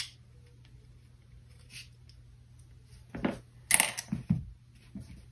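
Handling sounds of a pistol frame and its polymer grip on a rubber bench mat: a click at the start, then a few dull knocks and one sharp metallic clink about three and a half seconds in, the loudest sound.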